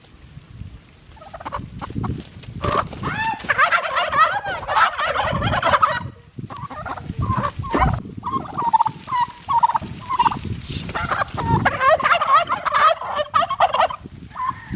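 Turkeys gobbling in two long, rapid warbling bouts, the first about three seconds in and the second about eleven seconds in, with short single calls between them.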